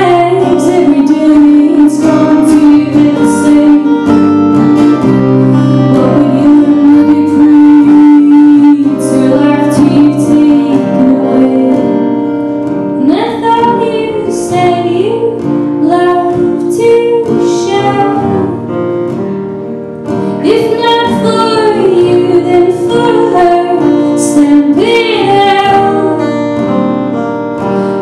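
A woman singing live to acoustic guitar accompaniment. She holds one long note a few seconds in, and her line moves more freely through the second half.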